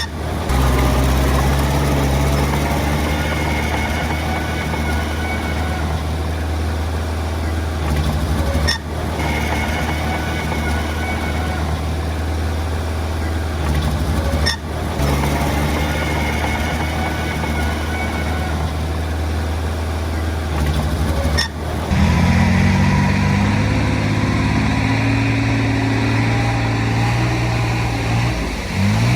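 Diesel engine of heavy earthmoving machinery running steadily under load, with its pitch climbing as it revs up in the last third.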